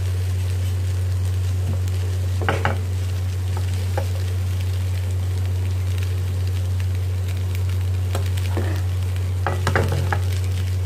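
Noodles and vegetables stirred and tossed with metal tongs in a frying pan over the heat, with a faint sizzle and a few clacks and scrapes of the tongs against the pan, over a steady low hum.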